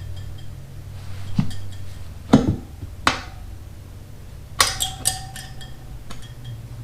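Steel tire irons clinking and knocking against a motorcycle wheel rim while a tubed tire is levered over it: half a dozen sharp metal strikes, one of them ringing briefly. A steady low hum runs underneath.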